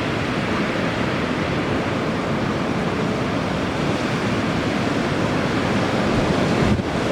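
Strong wind blowing steadily, also buffeting the microphone, and thinning briefly near the end.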